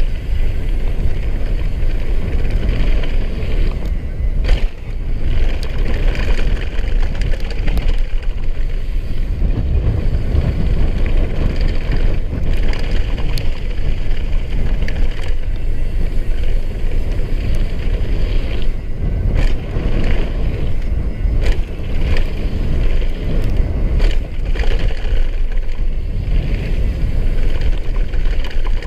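Downhill mountain bike running fast on a gravel trail: wind buffets the action camera's microphone over the rumble of the tyres on loose gravel. Frequent knocks and rattles come from the bike as it goes over bumps.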